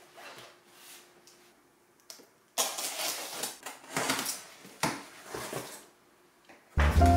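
Cardboard packaging being handled and opened: irregular scraping and rustling of cardboard that starts suddenly a couple of seconds in, after a few faint knocks. Music comes in near the end.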